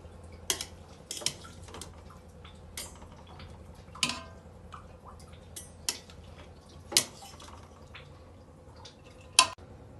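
A metal slotted spoon clinking and knocking against an aluminium cooking pot as boiled rice is spooned in, in scattered clinks a second or so apart, the loudest knock near the end.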